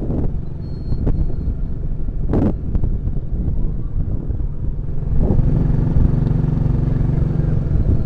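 Motorcycle engine running as it rides along, heard up close from the bike with wind rushing past; a couple of brief knocks early in, and the engine note grows steadier and louder about five seconds in.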